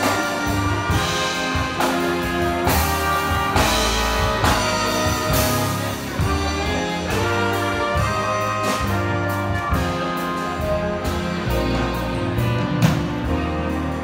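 Big band playing live: a brass section of trumpets and trombones with saxophones, over a drum kit.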